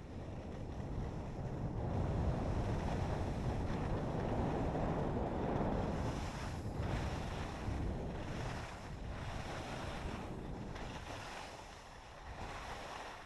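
Wind rushing over the GoPro's microphone while skiing downhill, with the skis sliding over snow. It is loudest in the first half and eases off in the second, with a few brief dips.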